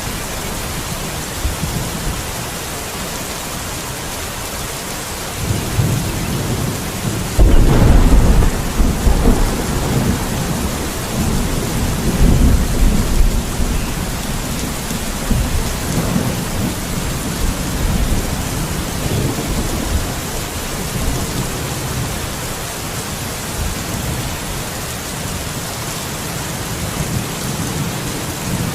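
Steady heavy rain with thunder. A low rumble builds about five seconds in, then a sudden loud thunderclap breaks a little after that and rolls on, fading over several seconds back into the rain.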